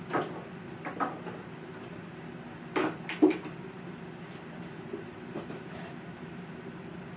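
A few knocks and clinks of kitchenware being handled, the loudest pair about three seconds in, over a low steady hum.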